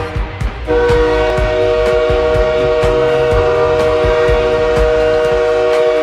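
The Calgary Wranglers' hockey arena goal horn sounding a loud, steady chord, which announces a Wranglers goal. The horn dips briefly at the start, comes back under a second in and holds until it cuts off near the end, over a goal song with a regular drumbeat.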